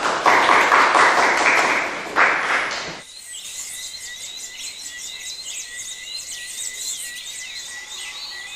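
Audience applauding for about three seconds, cut off abruptly. Many birds chirping and a steady high-pitched trill follow.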